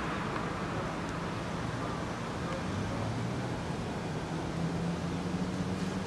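Steady low outdoor background hum with a faint low drone that grows slightly stronger near the end.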